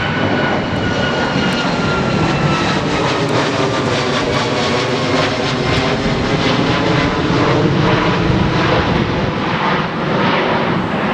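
Airliner engines running loud as the aircraft passes close by, their whine falling slowly in pitch.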